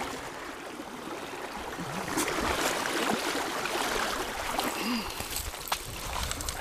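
River current rushing and splashing around a wader's legs while a hooked salmon thrashes into a landing net, with a few sharp splashes in the middle.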